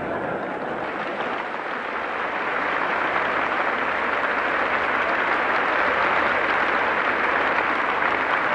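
A large audience in a hall applauding: an even clatter of many hands clapping that swells a little over the first few seconds and then holds steady, on an old film soundtrack.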